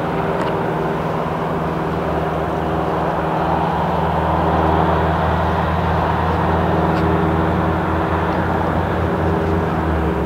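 Boeing 787 Dreamliner's Rolls-Royce Trent 1000 jet engines running at taxi idle as the airliner rolls slowly: a steady hum with several held tones, growing a little louder about halfway through.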